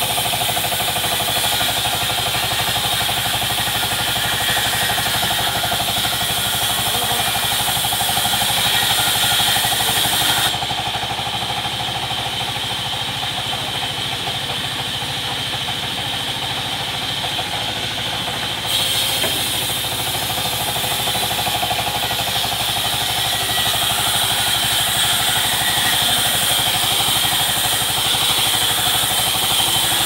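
Belt-driven band sawmill running steadily as the blade cuts teak planks: a constant machine hum under a high hiss of the blade in the wood. The hiss falls away for several seconds in the middle, then returns.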